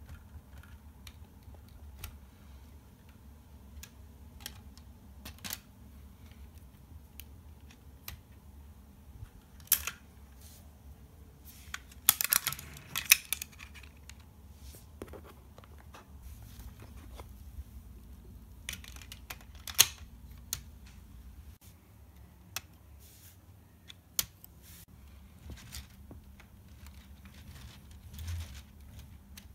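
Lego Technic plastic parts clicking and rattling as the model car is handled and its hard-top roof is lifted off. Scattered sharp clicks, with a quick run of clicks a little before halfway, over a low steady hum.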